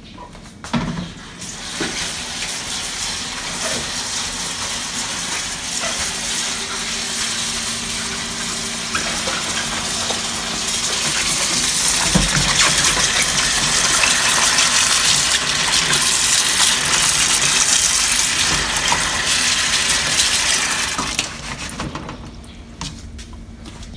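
Kitchen tap running into a plastic bowl of cabbage leaves in a stainless steel sink, with water splashing as the leaves are rinsed by hand. The flow grows louder partway through and is turned off near the end.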